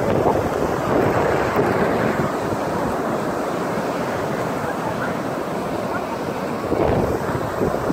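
Ocean surf breaking and washing up the beach, mixed with wind rumbling on the microphone; the noise swells louder near the start and again about seven seconds in.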